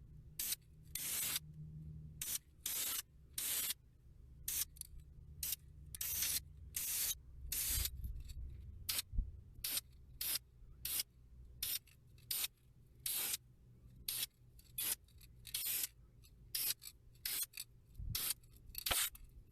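Krylon aerosol spray paint can sprayed in many short, irregular hissing bursts, a fraction of a second each, dabbing paint onto chipped spots.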